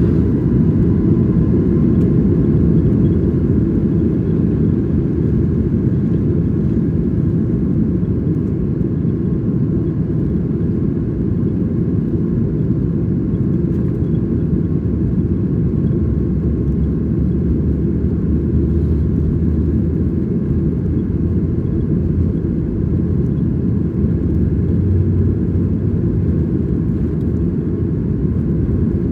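Steady low roar inside the passenger cabin of a Boeing 737 MAX, from its CFM LEAP-1B engines running and the cabin air.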